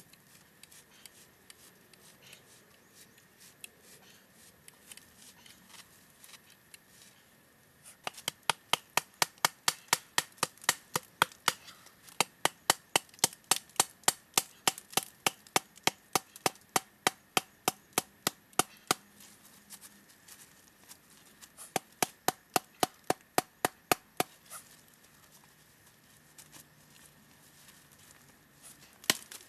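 Rapid, evenly spaced chopping strikes of a blade into wood, about three or four a second, starting about eight seconds in, pausing briefly about two-thirds of the way through, and starting again just before the end.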